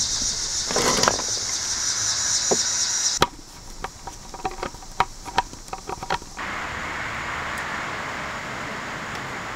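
Screwdriver clicking and scraping on the screw terminals of a solar charge controller as wires are fastened in, with a quick run of small sharp ticks in the middle, over a steady outdoor background hiss.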